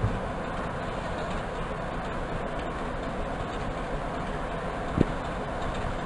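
BR Class 46 diesel locomotive's Sulzer twelve-cylinder engine running steadily at a distance, heard as an even low rumble, with a single sharp knock about five seconds in.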